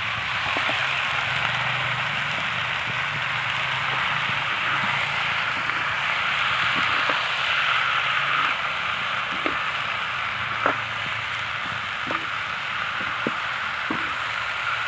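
Wild mushrooms, shallots and garlic frying in hot oil in a wok, a steady sizzle as they are stirred with a spatula, with a few short clicks through the second half.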